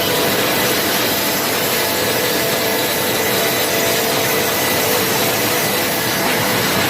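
Sawmill machinery running steadily, with a power saw cutting pine wood: a constant, unbroken noise with a few faint steady whining tones.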